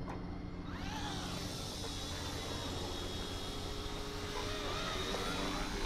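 Battery-powered RC scale helicopter (RTR Hobby 206 JetRanger) spooling up: about a second in, its motor and rotor whine rises in pitch, then holds a steady high whine over a low hum.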